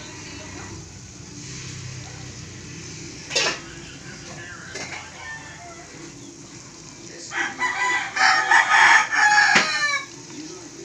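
Rooster crowing: one loud crow of about two and a half seconds near the end, finishing on a falling note, over a low steady background, with a brief sharp sound about three seconds in.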